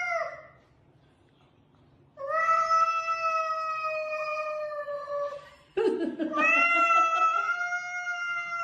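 Cat yowling during a standoff with another cat: two long, drawn-out cries, the first starting about two seconds in and the second about six seconds in, after the tail of an earlier cry at the very start.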